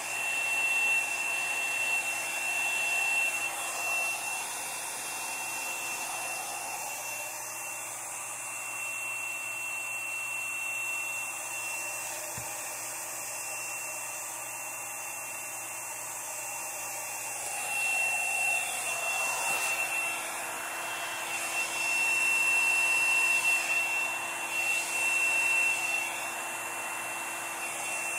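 Small handheld hair dryer running steadily, blowing air onto wet acrylic paint to push it across the canvas, with a constant high motor whine over the rush of air. Its level swells and drops as it moves closer to and away from the surface, loudest in the second half.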